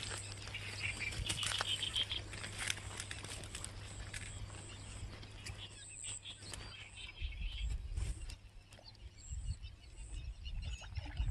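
A hooked fish splashing and flapping on the line as it is lifted from the water, with birds chirping in the background.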